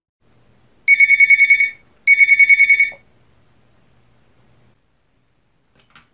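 Red lip-shaped novelty telephone's electronic ringer trilling: two rings of about a second each, one right after the other, with a fast warble on a high tone.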